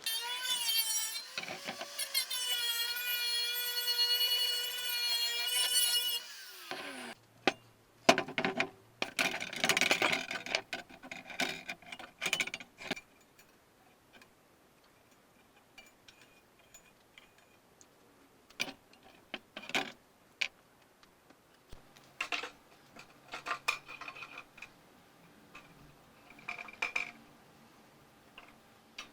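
A small power tool runs with a steady high whine for about six seconds, then spins down. Bursts of rasping, scraping tool work follow, then scattered taps and clicks.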